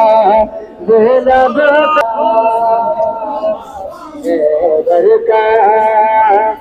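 A male voice chanting a nouha, a Shia mourning lament, in long held, wavering melodic phrases with short pauses between lines.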